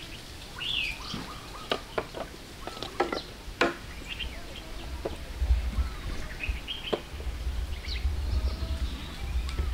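Birds chirping and twittering in woodland, with several sharp clicks in the first four seconds. A low rumble comes in about halfway through.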